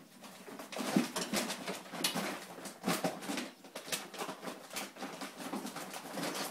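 Coonhound rooting in a wagon for a food bag: irregular rustling and crinkling of the bag, with scattered knocks and the dog's own low sounds.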